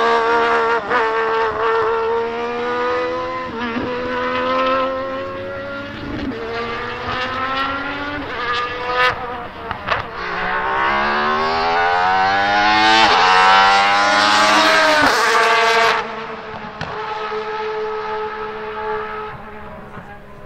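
1996 Alfa Romeo 155 DTM V6 Ti's 2.5-litre naturally aspirated V6 racing engine revving hard as the car accelerates round the track. Its pitch climbs steeply in each gear and is broken by sharp cuts at the gear changes. It is loudest about two-thirds through, drops off suddenly, then fades as the car moves away.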